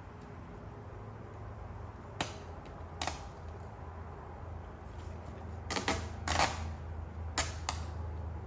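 Adhesive vinyl stripe film crackling as it is peeled off and handled, in a handful of short sharp bursts (two early, then a cluster of four or five near the end), over a steady low hum.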